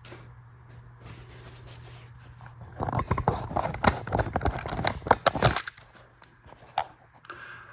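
Metal tools and parts being handled: a rapid clatter of clinks and knocks for about three seconds in the middle, then a single click near the end, over a steady low hum.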